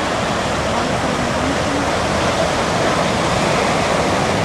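Steady rush of breaking ocean surf.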